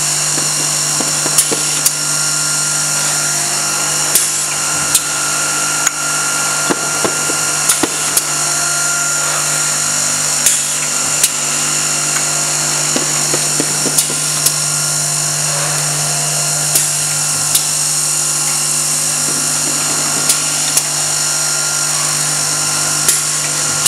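Automatic cylindrical candle head sharpening machine running: a steady motor hum and whine, with irregular sharp clicks and clacks from its mechanism.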